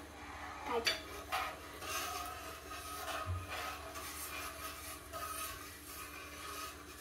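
Metal spoon stirring and scraping the bottom of a stainless steel frying pan of sugar syrup, in repeated short strokes, over a faint steady hum.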